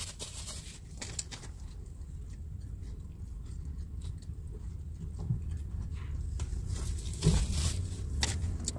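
Someone picking at and eating fried batter crumbs from a takeout container: scattered small crunches, crackles and rustles, with one louder knock about seven seconds in. A steady low rumble runs underneath inside the vehicle.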